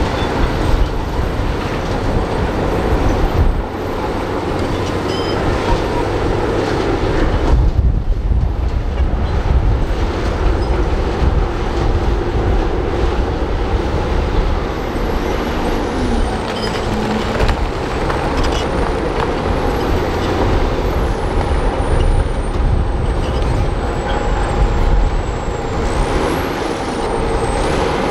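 Heavy diesel engine of a crawler bulldozer running steadily under load as it pushes dirt and rock.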